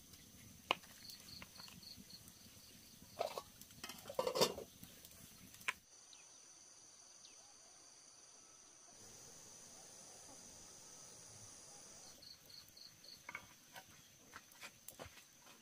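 Insects trilling steadily at a high pitch, with short runs of quick pulsed chirps about a second in and again later on, over scattered clicks and knocks, the loudest a little before the middle.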